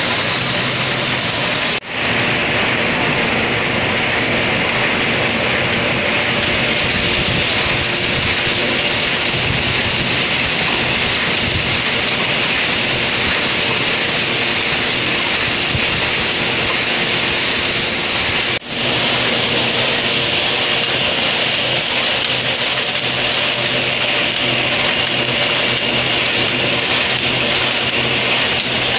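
Paper bag factory machinery running: a loud, steady mechanical din with a constant hum, dropping out for a split second twice.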